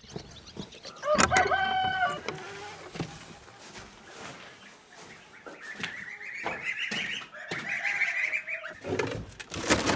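Chickens calling: one loud call about a second in, then a longer, higher, wavering call from about halfway until near the end, when a burst of rustling noise comes in.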